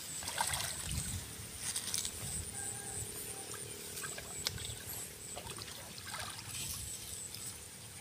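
Shallow muddy water sloshing and trickling in small, irregular splashes as hands grope through it for fish, with a thin high steady tone behind.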